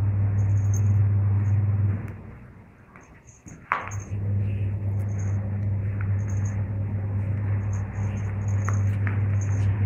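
A steady low hum that drops out about two seconds in and comes back after a sharp click near four seconds, with faint short high ticks scattered through.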